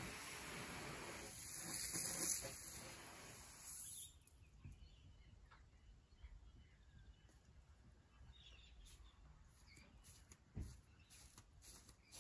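Garden hose spraying water with a steady hiss that cuts off abruptly about four seconds in, then faint outdoor quiet with a few small knocks and one short thump near the end.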